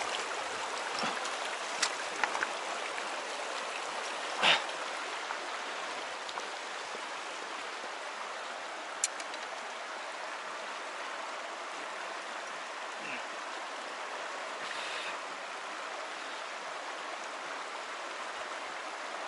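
Shallow river running fast over a pebble bed, a steady rushing of water. A few short clicks and knocks sound over it, the loudest about four and a half seconds in.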